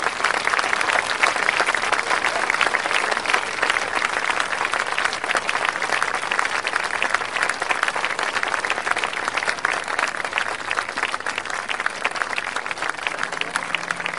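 An audience applauding: many hands clapping in a dense, steady stream.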